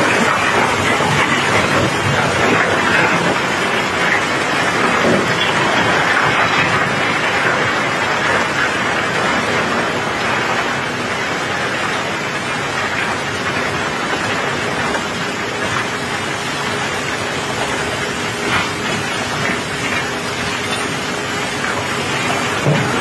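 Wet cobblestones clattering and rushing down a barge's unloading chute in a dense, continuous rattle, mixed with the hiss of steady rain. A faint, steady machine hum sits underneath.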